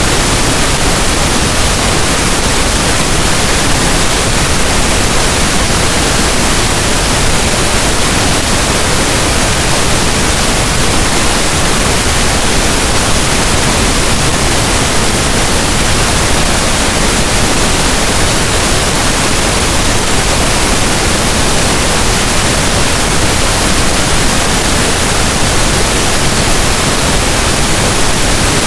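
Generated pink noise: a steady, even hiss across all pitches, with no tones, beats or changes.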